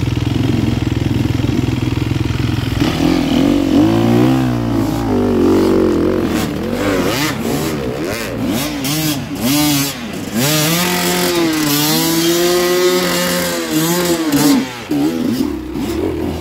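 Enduro dirt bike engine idling steadily, then from about three seconds in revving up and down in repeated short throttle blips as the bike is worked up a steep, rooty climb.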